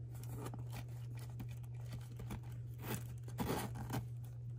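Soft rustling and a few light knocks as hands pack a small pouch and handle the items going into it, over a steady low hum. The most distinct handling sounds come about three seconds in.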